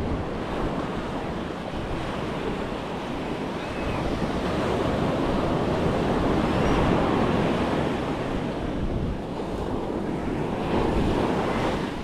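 Atlantic surf breaking and washing up the sand in a continuous hiss that swells about halfway through and again near the end, with wind buffeting the microphone.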